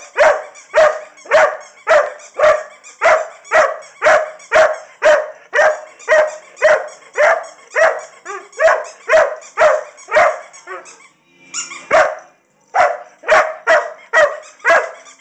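Irish Setter barking steadily, about two barks a second, demand barking to be given her toy. The barking breaks off briefly after about ten seconds, with one lone bark, then starts again.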